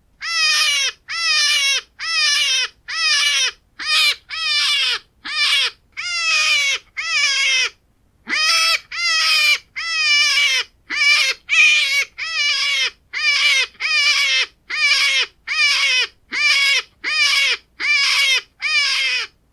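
European hare squealing, a long series of short, high cries that each fall in pitch, about one and a half a second with a brief pause partway through. These are the squeals a hare gives when threatened.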